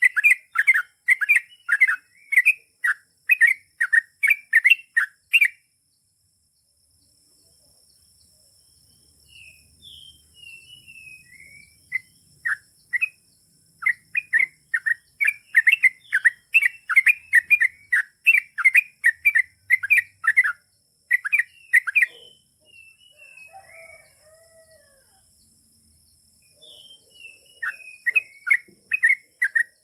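Yellow-vented bulbul (trucukan) singing its long repeated song: runs of rapid, evenly repeated chattering notes, about three a second. The runs are broken by pauses with scattered single calls.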